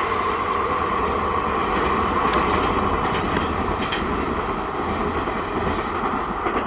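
Passenger train passing at speed: a steady rumble of wheels on the rails, with a few sharp clicks about two to four seconds in.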